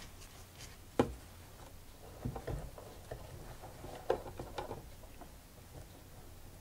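Hands shifting and rustling cotton fabric at a stopped sewing machine, with one sharp click about a second in and softer handling noises after it.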